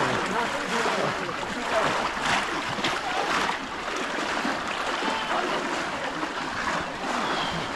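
Shallow stream water splashing and churning as several people wade through it and push bamboo fish traps down into it.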